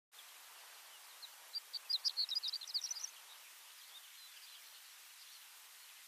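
Horned lark (shore lark) giving a quick jumble of high, chirping notes that climb a little toward the end, starting about a second in and lasting about two seconds. A few faint notes follow over a steady background hiss.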